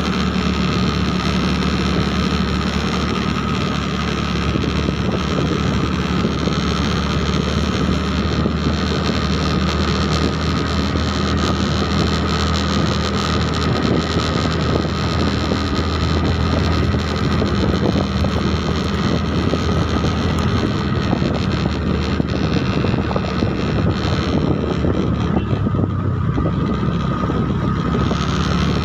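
Engine of the vehicle carrying the phone running steadily at road speed, with wind noise on the microphone.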